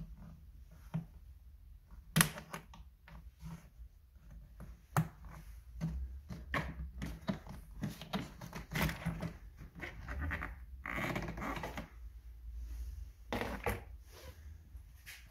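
Sharp plastic clicks and knocks with scraping and rustling as a hand works at the Mercedes engine-bay plastic cover and grille over the battery compartment, pulling at its clips. The loudest click comes about two seconds in.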